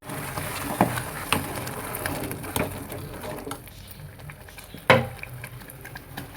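Kitchen cooking sounds: a few scattered knocks and clicks of utensils, the loudest about five seconds in, over a low steady hum.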